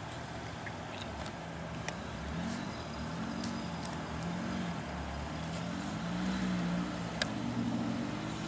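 Suzuki Samurai's four-cylinder engine running at low speed as the 4x4 crawls through tall grass, its pitch rising and falling with the throttle and growing louder as it comes close. A few sharp clicks sound over it.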